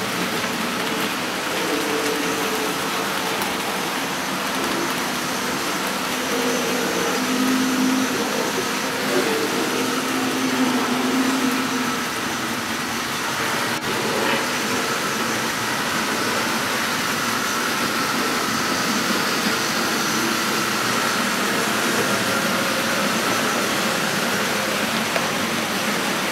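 00 gauge model trains running on the track: a steady whirr of the electric motors mixed with the rattle of wheels over the rails. A low motor hum runs through the first half, and a higher faint whine is heard in the second half.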